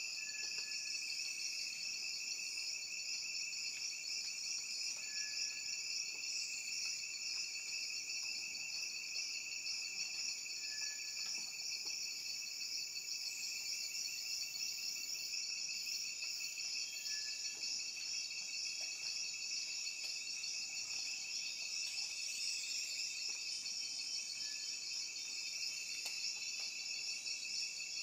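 Chorus of rainforest insects: a steady, dense high trilling in two pitch bands. A faint short high note repeats about every five or six seconds.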